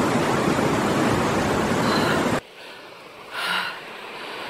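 Rushing mountain river, a steady hiss of water that cuts off suddenly about two and a half seconds in. After that it is much quieter, with one heavy panting breath about a second later from someone climbing a steep slope.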